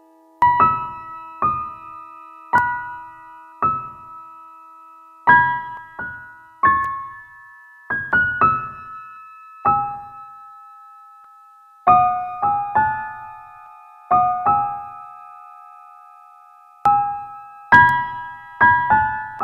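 Slow, gentle solo piano music: single notes and soft chords struck a second or two apart, each ringing and fading away.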